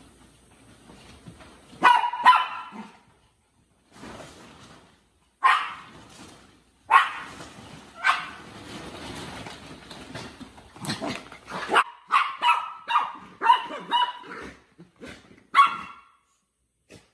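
Yorkshire terriers barking: short, sharp, high barks in scattered bursts, coming thick and fast in the second half.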